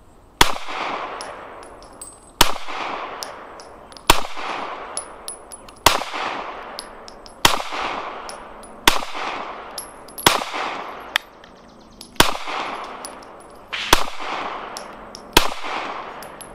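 Glock 19 Gen 3 pistol firing ten deliberate shots of 115-grain 9mm FMJ (Atlanta Arms Select), spaced about one and a half to two seconds apart, each shot followed by an echo that dies away. Light high ticks sound between the shots.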